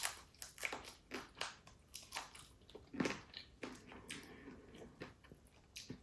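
Mouth sounds of eating crab: faint, irregular crunches and chewing clicks, about two a second.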